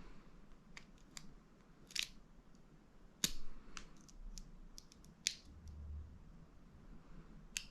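Lock pick and tension wrench working the pin tumblers of a Master Lock 141 laminated padlock: faint, irregular small metallic clicks and ticks, with a few sharper clicks about two, three and five seconds in.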